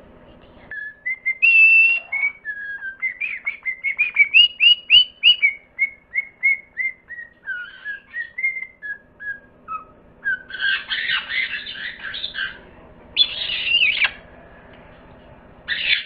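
A parrot whistling a long string of short, clear notes that rise and fall in pitch, then breaking into harsh, raspy squawks about ten seconds in, in two spells.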